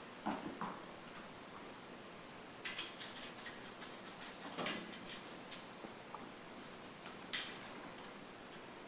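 A dog making two short sounds near the start, followed by a few sharp clicks or taps spread over several seconds.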